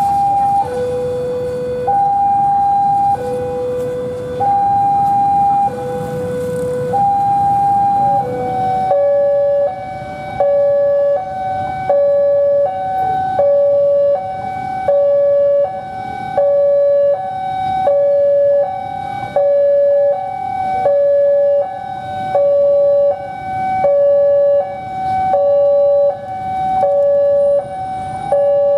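Electronic two-tone railway level-crossing alarm sounding, a low and a high tone alternating slowly. About nine seconds in it changes to another crossing alarm with a quicker two-tone cycle whose tones lie closer together in pitch.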